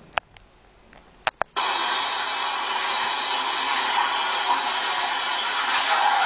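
A few sharp clicks, then about a second and a half in a loud, steady rushing noise starts abruptly from a video playing on a computer and keeps on unchanged.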